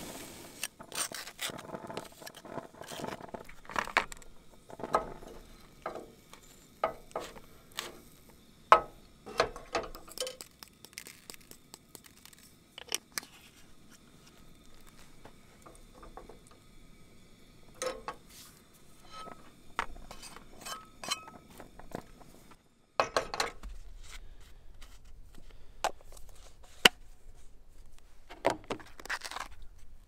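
Cookware, dishes and utensils being handled at a camp stove: a string of separate clinks, scrapes and sharp knocks, the sharpest about nine seconds in.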